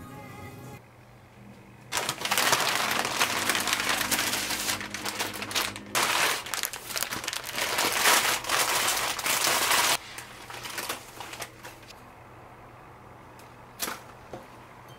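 Florist wrapping paper crinkling and rustling as hands fold it around a flower bouquet, in two long loud spells, then softer handling and a single sharp snip of scissors through a flower stem near the end.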